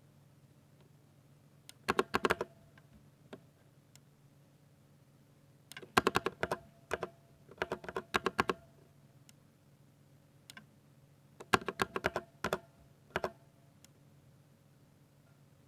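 Typing on a Ducky 60% mechanical keyboard with silver switches: quick bursts of keystrokes, three runs of rapid clicks with pauses between them.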